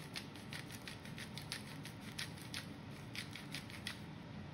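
Coarse sea salt sprinkled by hand over fish on a stainless steel plate: an irregular run of small sharp ticks as the crystals fall, several a second, stopping about four seconds in.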